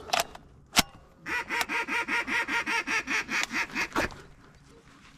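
A run of about fourteen quick, evenly spaced mallard-style quacks, about five a second, lasting close to three seconds. Before the quacks come two sharp clicks, the louder one a little under a second in.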